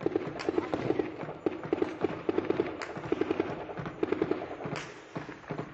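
Bursts of automatic gunfire: rapid shots in short volleys, over and over, with more shots scattered between them. The weapons are being fired in a tribal armed clash.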